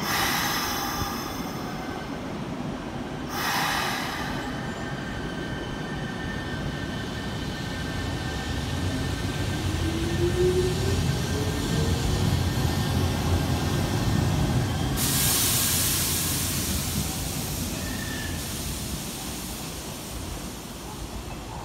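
Hanshin 8000 series electric train pulling out of the station: wheels and motors rumbling, building as it gathers speed, with a motor whine rising in pitch about 8 to 11 seconds in. Two short hisses near the start and a longer loud hiss about 15 seconds in.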